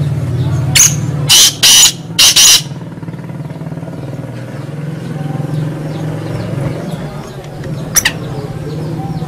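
Caged male black francolin calling: a run of four or five loud, noisy notes in the first two and a half seconds, and one more short note about eight seconds in. A steady low hum runs underneath.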